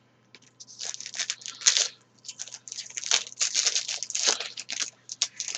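A pack of trading cards being torn open by hand, its wrapper crinkling in irregular rustling bursts.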